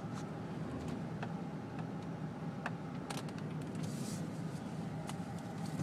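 Car driving, heard from inside the cabin: a steady low road-and-engine rumble, with scattered light clicks and rustles of a phone being handled.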